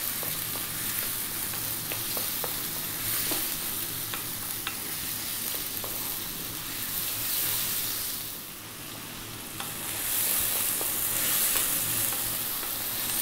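Chicken strips, onion, ginger and garlic sizzling in hot sesame oil in a wok on high heat, stirred with a wooden spoon that now and then clicks against the pan. The sizzle dips for a couple of seconds about two-thirds of the way through, then comes back.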